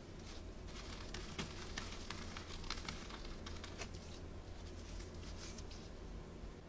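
Sugar-frosted cornflakes crackling and crunching as a ball of scone dough is pressed down into a pile of them, a dense run of small crisp crackles for the first few seconds that thins out toward the end.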